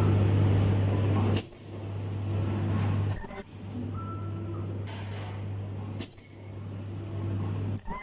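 Ultrasonic garment bonding and cutting machine running: a steady low hum broken by five sharp clicks as it cycles, with a brief high tone about four seconds in.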